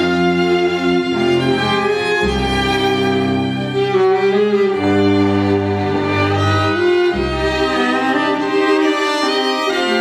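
String quintet playing live: violins carrying the melody over cello and double bass, with long low bass notes that change every second or two.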